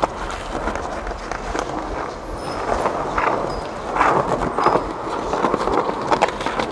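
Skateboard wheels rolling on smooth stone pavement in a steady rumble, with scattered clicks and knocks from the board and a few rougher louder stretches.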